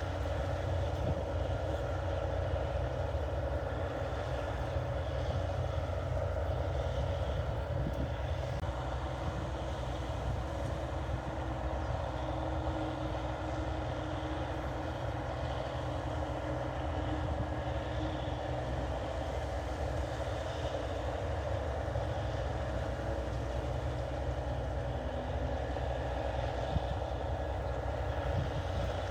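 New Holland 8080 combine harvester running steadily while harvesting rice: a constant deep engine drone with the steady hum of the cutting and threshing machinery.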